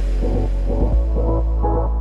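Electronic background music with a heavy, steady bass under a repeating pattern of short notes.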